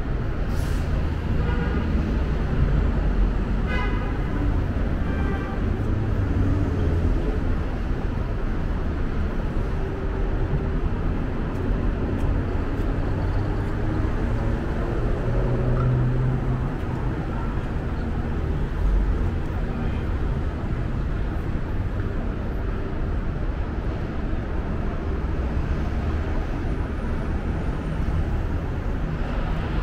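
Steady low rumble of vehicles, the kind heard from traffic.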